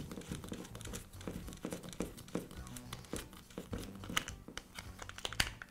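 Soft background music, with faint scattered clicks and rattles of a plastic knob being threaded onto a plastic air cleaner lid.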